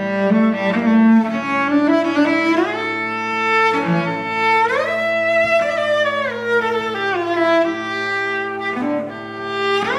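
Solo cello bowed, playing a slow melody that slides up and down in pitch over a steady low drone, with a sharp new bow stroke near the end.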